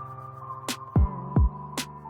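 Electronic background music with a steady beat: deep kick drums, sharp snare hits and a held synth note.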